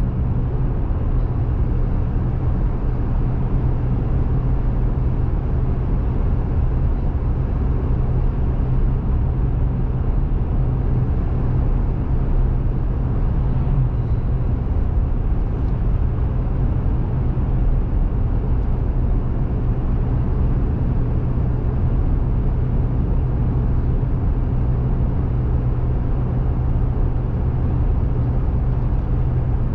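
Steady car driving noise heard from inside the cabin: engine hum and tyre and road rumble at highway speed, even throughout.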